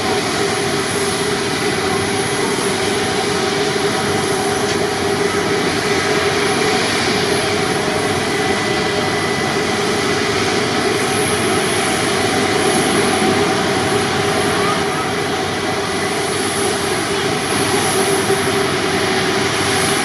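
Jet airliner engines running, a steady loud rush of noise with high whining tones held throughout.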